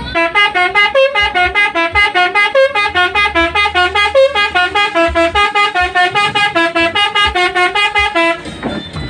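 Bus telolet horn playing its full melody: a long run of short horn notes in quick succession, about four to five a second, ending shortly before the close.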